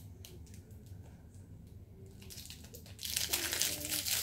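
Plastic wrapping of a small LOL Surprise packet crinkling and tearing as it is opened by hand. It is a faint rustle at first, then loud crinkling from about three seconds in.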